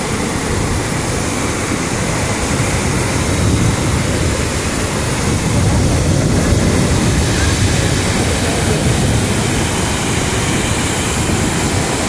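River waterfall in high flow: a loud, steady roar of water pouring over rock ledges, growing slightly louder about halfway through.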